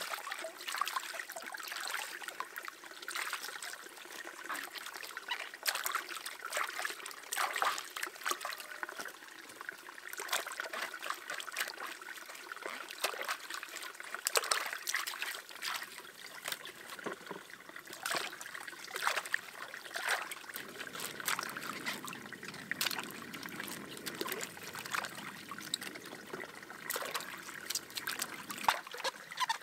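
Water trickling and splashing, with many scattered clicks and knocks of something being handled; a lower rushing is added in the last third.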